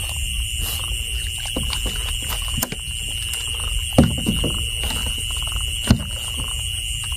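Steady high-pitched drone of night insects over a low rumble, broken by a few sharp knocks and splashes as the gill net and fish are handled at the water, the loudest about four seconds in and near six seconds.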